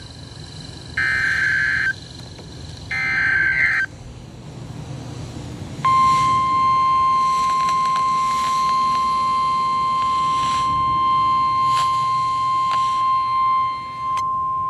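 Emergency Alert System tornado warning: the end of one SAME digital header burst and two more one-second bursts of the warbling data screech, then, after a two-second gap, the steady 1050 Hz NOAA Weather Radio warning alarm tone, held for about nine seconds.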